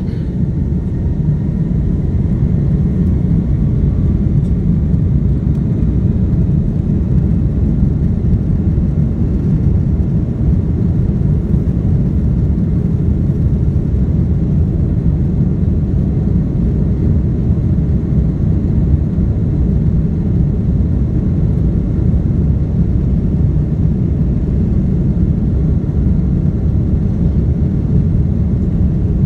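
Airbus A330-200's Rolls-Royce Trent 700 turbofans at takeoff power, heard from inside the cabin as a steady low rumble that swells over the first few seconds as the engines spool up, with a faint rising whine.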